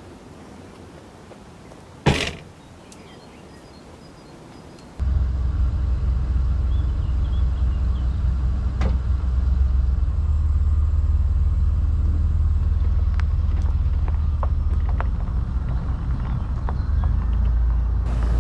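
A car door shuts with one sharp bang, then a few seconds later a steady low rumble of a car running and driving sets in abruptly: the 2005 Ford Escape's 3.0 V6, with a few light ticks and rattles over it.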